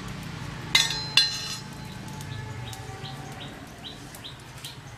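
Two ringing clinks of a metal spoon against a steel plate about a second in, then a bird chirping repeatedly, short rising chirps a little over twice a second.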